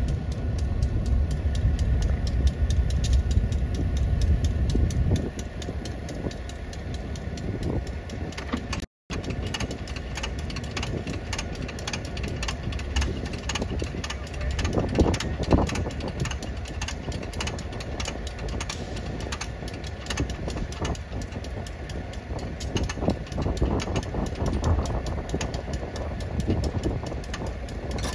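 Diesel engine idling, a steady low rumble with fast, even ticking, heavier for the first five seconds. The sound drops out for an instant about nine seconds in.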